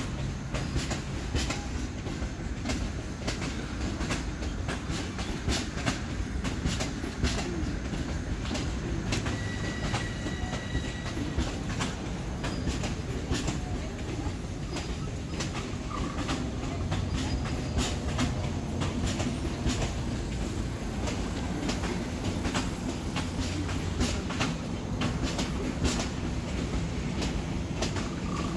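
Long Island Rail Road Bombardier M7 electric commuter cars rolling past, wheels clattering over rail joints in a steady run of clicks over a low rumble and hum. A brief high-pitched wheel squeal comes about ten seconds in.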